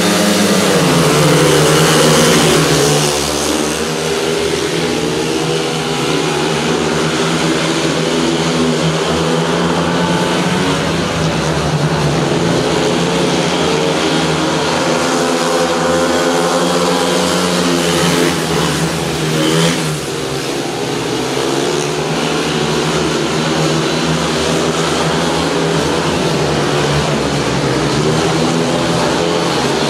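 Speedway motorcycles racing: several 500 cc single-cylinder engines running hard together, their revs rising and falling as the riders go round the track.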